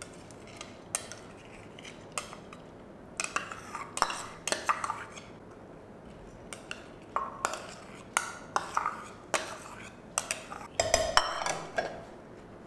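Steel spoon clinking and scraping against small stainless-steel bowls as soaked lentils are scooped out and tipped into a pressure cooker. The clinks and scrapes come irregularly, several a second at times, with short pauses between them.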